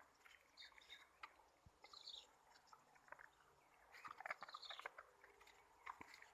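Faint, irregular crunching and clicking of dogs chewing, with a few short, high chirps falling in pitch.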